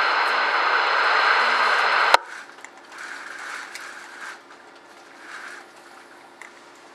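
Uniden BCD996T scanner's speaker hissing with steady radio static as the channel stays open after a transmission. About two seconds in, the squelch closes and the hiss cuts off suddenly with a click, leaving a quiet room background with a few faint soft knocks.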